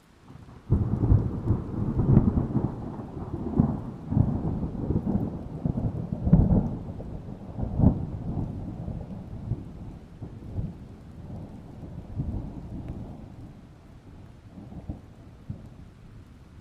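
A thunderclap: a sudden crack under a second in, then a long crackling, rolling rumble with several louder peaks that slowly dies away, over steady rain.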